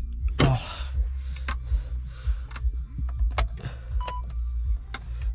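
Scattered clicks and knocks of objects being handled, over a steady low rumble, with one short beep about four seconds in.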